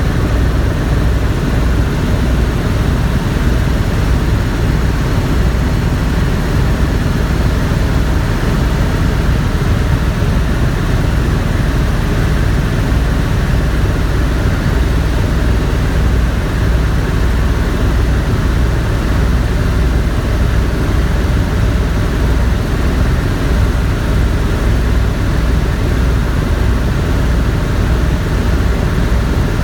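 Tour helicopter in flight: a loud, steady drone of rotor and engine with a low, evenly pulsing hum.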